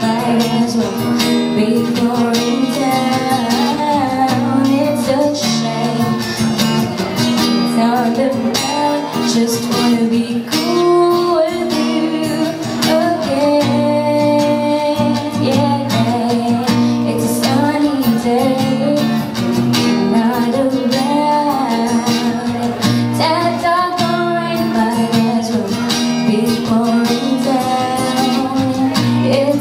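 A woman singing into a microphone, accompanied by an acoustic guitar: a live voice-and-guitar song performance.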